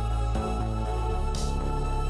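Background music: sustained electronic keyboard chords over a low bass note that shifts about a second in, with a soft swish near the end.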